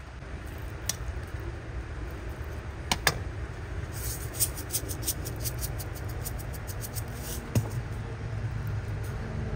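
Knife slicing grilled steak on a wooden cutting board: a couple of sharp taps of the blade, then a quick run of crisp sawing strokes from about four seconds in, over a steady low rumble.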